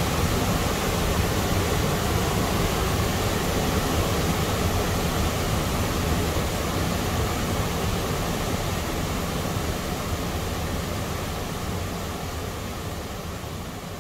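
Muddy flash-flood water rushing through a river ravine and pouring over a stepped bank: a steady rushing noise, heavy in the low end, that fades gradually over the last few seconds.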